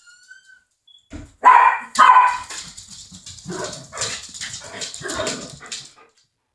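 Pet dogs barking in alarm at a smoke detector: two loud barks about a second and a half in, then a run of quieter barks that stops about six seconds in. A short high whine comes just before the barking.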